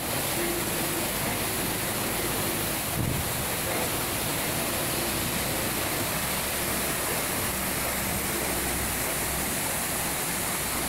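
Waterfall plunging onto rocks, a steady, dense rush of falling and running water. A brief low thump about three seconds in.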